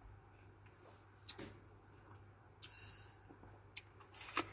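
Quiet eating sounds: a sharp crisp bite into a wax apple near the end, the loudest sound, with a few faint clicks and a short hiss before it.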